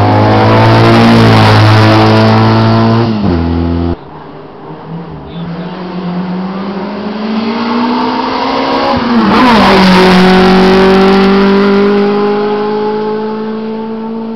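Hillclimb racing car engines at full throttle. The first car is loud and cuts off abruptly about four seconds in. A second car then comes closer, goes by with a quick drop in pitch just before ten seconds, and pulls away uphill with its engine pitch climbing steadily as it fades.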